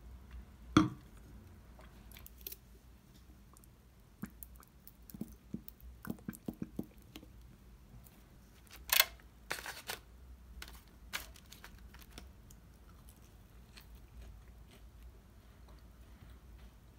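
Scattered light clicks and knocks, with two louder knocks about a second in and about nine seconds in, over a faint steady low hum.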